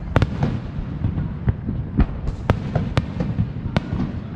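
Fireworks going off all around: a string of sharp, irregular bangs and pops, the loudest about every half second after the two-second mark, over a constant low rumble.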